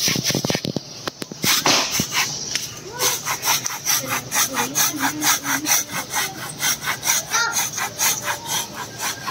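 Hand saw cutting into a tree trunk, the blade rasping through the wood in back-and-forth strokes. The strokes are uneven at first, then settle into a fast, even rhythm about three seconds in.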